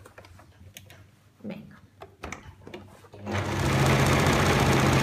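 A few light handling knocks, then a little over three seconds in an Elna electric sewing machine starts up and runs steadily at speed, sewing a small zigzag stitch through burlap.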